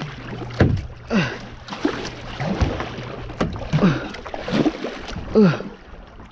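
A plastic kayak being paddled hard through shallow water: paddle strokes and splashes, with knocks of the paddle shaft against the hull. Short falling-pitch sounds recur with the strokes every half second to a second, and the noise eases off near the end as the kayak glides in.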